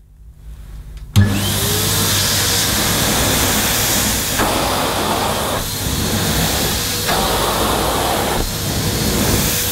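Numatic Nuvac canister vacuum cleaner with a 620-watt motor switched on about a second in, its pitch rising as the motor spins up, then running steadily. Its metal floor nozzle is pushed back and forth over thick plush carpet, the sound changing with each stroke about every second and a half; the nozzle pushes one way but not the other on this pile.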